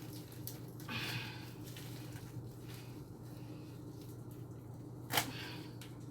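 Celery being cut on a cutting board: a short crunching rustle about a second in and one sharp knock of the knife on the board about five seconds in, over a low steady hum.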